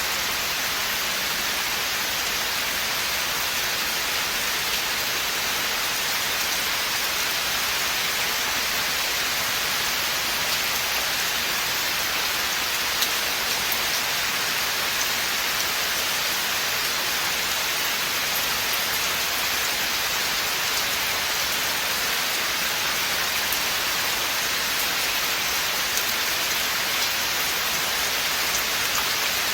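Steady rain falling in a forest, an even hiss of many fine drops with light patter from drops striking close by.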